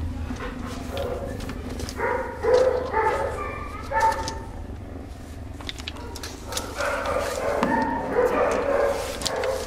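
Shelter dogs barking and yelping in bouts, one about two seconds in and another from about seven seconds, over a gray tabby kitten's steady low purr. Close rustles and clicks come from the hand handling the kitten near the microphone.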